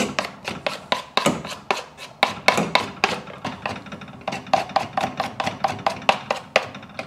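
Back of a kitchen knife scraping spätzle dough off a wet wooden spätzle board in quick strokes, each stroke knocking on the wood, about four a second; the strokes stop suddenly at the end.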